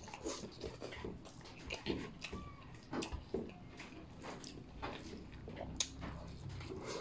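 Close-up mouth sounds of a person eating rice and kare-kare with the fingers: faint chewing and lip smacking, with scattered small clicks.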